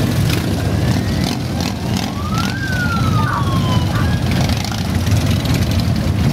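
A mass of Harley-Davidson V-twin motorcycles rumbling as they ride past at parade pace. About two and a half seconds in, a brief siren-like tone rises and then falls.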